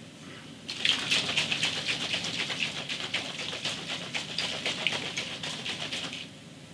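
A small plastic shaker cup being shaken fast by hand, the powdered supplement and water sloshing and knocking inside to mix. The shaking starts about a second in and stops shortly before the end.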